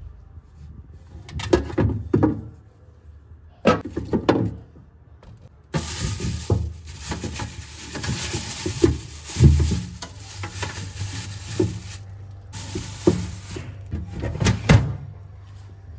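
Kitchen work: a few knocks and clatters of utensils, then a steady hiss that starts suddenly about six seconds in, stops about six seconds later and comes back briefly near the end amid more clatter.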